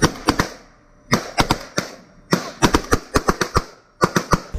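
Assault rifles firing in short bursts, four clusters of sharp cracks with brief pauses between them.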